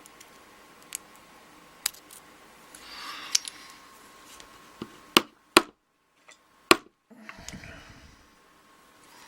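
Small metal tools clicking and scraping on a pin-tumbler lock cylinder as pins and a stubborn spring are worked out of their chambers. A string of sharp separate clicks, the loudest three between about five and seven seconds in, with short bouts of scraping.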